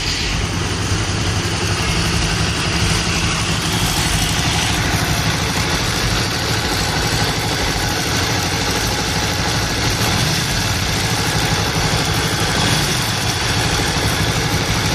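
Kasinski Mirage 250's V-twin engine idling steadily, with a slight noise from the top of the engine that the mechanic suspects is a bad rear camshaft bearing.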